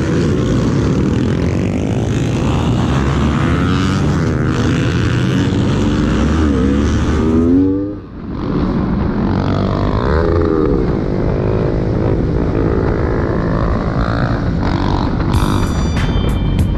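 Motorcycle engine running hard, its pitch climbing and falling as the bike accelerates and shifts. The sound drops out briefly about halfway through. Music with a steady beat comes in near the end.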